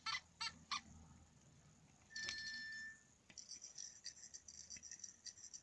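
Iggle Piggle soft talking toy sounding through its small built-in speaker. It makes a few squeaky high chirps at the start, a held electronic beep about two seconds in, then a rapid high-pitched twinkling run of notes.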